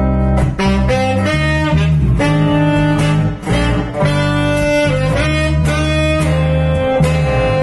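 Small jazz group playing: a tenor saxophone carries the melody in held notes, over an electric bass line and acoustic guitar accompaniment.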